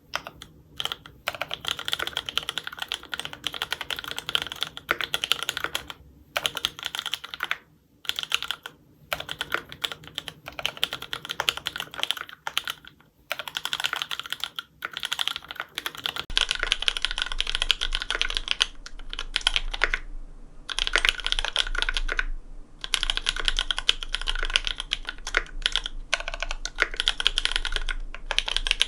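Fast typing on a Cannonkeys Satisfaction 75 custom mechanical keyboard with lubed Cherry MX Black linear switches on Kailh Cream stems, an FR4 plate and GMK keycaps. It is a stream of quick keystroke clacks, broken by brief pauses every few seconds.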